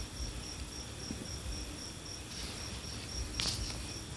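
A high-pitched chirp repeats about four times a second over steady background hiss, with a short rustle about three and a half seconds in.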